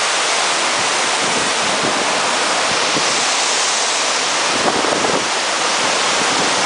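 Waterfall rushing close by: a loud, steady roar of falling water, with a few faint knocks and rustles of handling about five seconds in.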